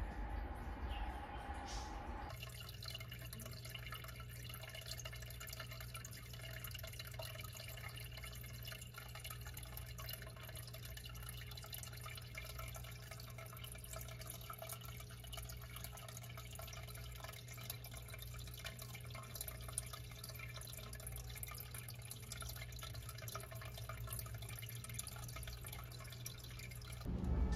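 Air bubbles from an aquarium aerator rising and popping in a water-filled glass fishbowl, a fine steady trickle of small ticks over a constant low hum, starting about two seconds in.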